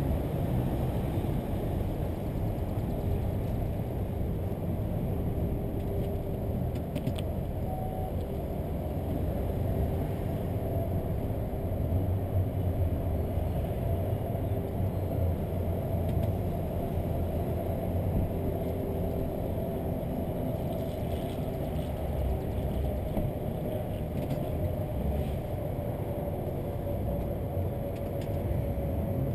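Low, steady rumble of a car's engine and tyres as it moves slowly, heard from a camera mounted on the car.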